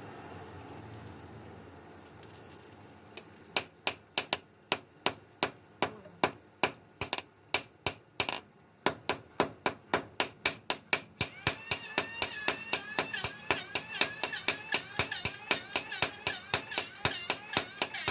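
Hand hammer striking steel in a steady run of blows, about three a second, starting a few seconds in. The blows pause briefly about halfway and then carry on, ringing metallically in the later part.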